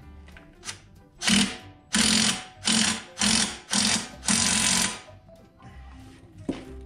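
Power rake blade bolt on a lawnmower being tightened: six short, loud bursts of rapid mechanical rattling in a steady rhythm, a little over half a second apart, ending about five seconds in.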